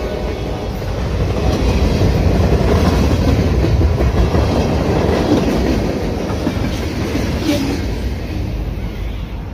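Freight cars rolling past close by, wheels running over the rails in a steady rumble that is loudest in the middle and fades away near the end as the last cars go by.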